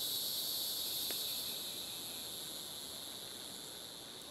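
Steady insect chorus, a continuous high shrill trill that eases a little toward the end, with one faint tick about a second in.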